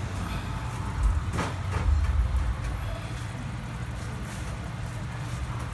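Metal ladle scooping sauce from a pan and spooning it over cooked crabs, with a couple of brief scrapes about a second and a half in, over a steady low rumble.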